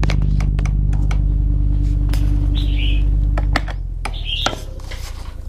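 A steady low motor-like hum with several overtones is the loudest sound and stops about three and a half seconds in. Over it come sharp scattered clicks and two short calls from a common hill myna.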